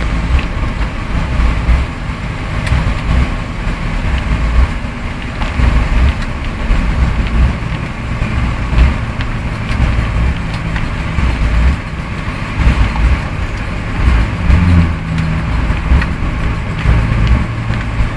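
A motor vehicle's engine running as it drives through flood water, with the continuous rush and splash of the water against the vehicle.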